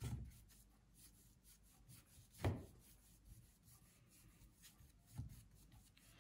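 Large bristle brush rubbing wet oil paint over a cotton canvas, faint soft strokes, with a few short bumps, the loudest about two and a half seconds in.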